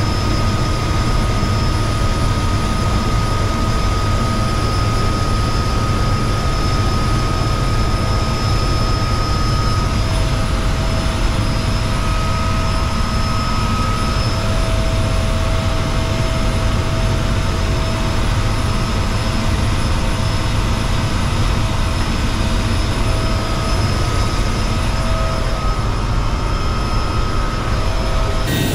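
Seaplane's propeller engine running steadily: a loud, continuous rumble with a few steady high tones over it.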